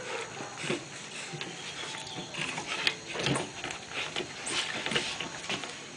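Handling noise: scattered rustles and clicks as cloth adhesive tape is wrapped and pressed around a Bull Terrier puppy's ear.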